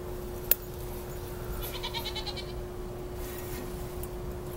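A sharp click about half a second in, then a short bleat-like animal call around two seconds in, over a steady faint hum.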